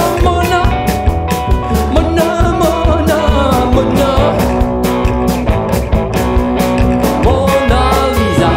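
Psychobilly band playing a rock-and-roll song: electric guitar, upright double bass and drums, with a steady driving drum beat.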